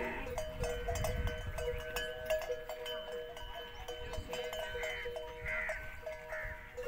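Herd of dromedary camels with calves: a few short bleating calls come about five to six and a half seconds in. Under them runs a steady two-note ringing with frequent light clinks.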